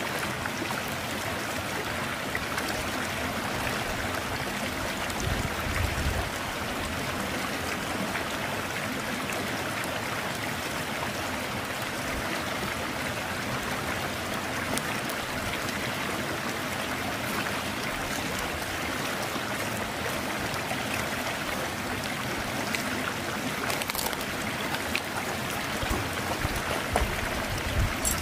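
Steady rushing of a flowing river, with a few sharp crackles from a small wood fire, most noticeable about 24 seconds in and near the end.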